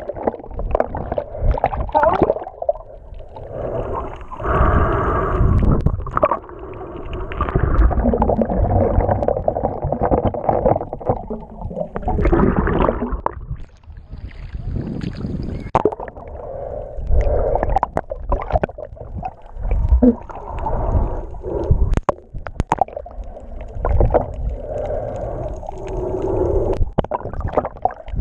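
Muffled water sloshing and gurgling around a waterproof action camera as it dips in and out of the surface and moves underwater, in irregular surges with scattered sharp ticks.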